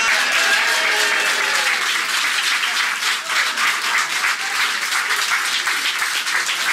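A small crowd clapping steadily, with a few voices calling out over the applause early on.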